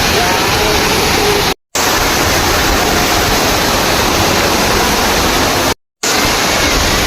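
Waterfall rushing, a loud steady roar of falling water. It cuts out to silence for a moment twice, about one and a half seconds and six seconds in.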